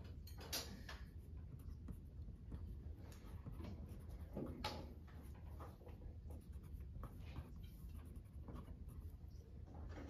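Pencil writing on a paper drawing sheet: short, irregular scratching strokes of small lettering, over a low steady hum.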